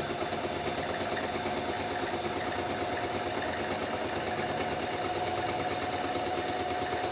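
Electric domestic sewing machine running at a steady speed with an even hum, stitching a lining onto a jacket pocket facing.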